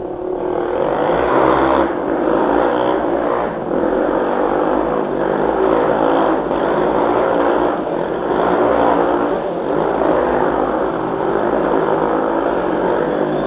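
Motorcycles revving as they circle inside a steel-mesh globe of death. The engine note builds in the first second or two, then rises and falls again and again, about every two seconds.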